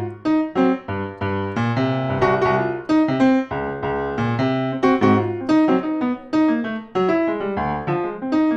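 Acoustic piano playing a jazz ballad passage, low chords under a higher melody line, with no singing.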